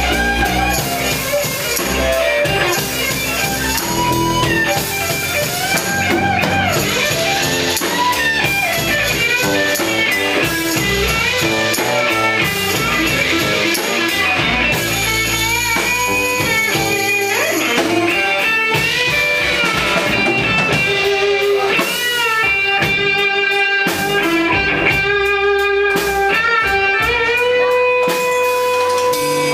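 Live rock-blues band playing, led by electric guitar, with notes bending up and down in pitch and a few long held notes near the end.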